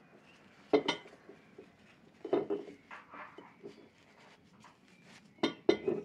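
A white ceramic mug clinking and knocking against the table and plates as it is handled, in short sharp knocks: a pair about a second in, more about halfway, and a pair near the end. A paper napkin rustles softly between the knocks.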